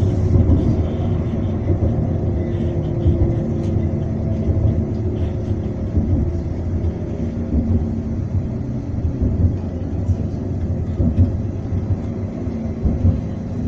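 Steady low rumble of a moving tram heard from inside the car, its wheels running on the rails, with faint humming tones that come and go.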